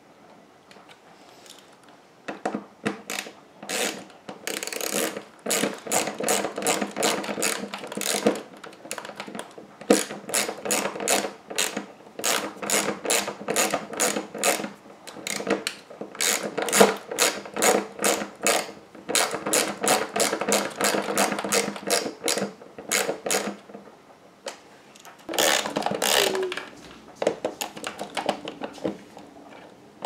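Ratcheting screwdriver clicking in quick runs while driving screws into the refrigerator's plastic dispenser housing. The clicking starts about two seconds in, breaks into bursts with short pauses, and has a last brief run near the end.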